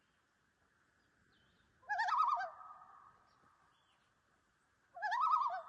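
Common loon giving tremolo calls twice, about three seconds apart. Each call is a short quavering, wavering cry that echoes as it fades.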